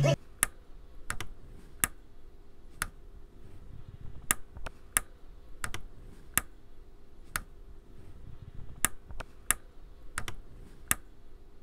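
Vinyl record surface noise as the stylus rides a silent stretch of groove: scattered pops and clicks, about one or two a second at uneven spacing, over a faint steady hum.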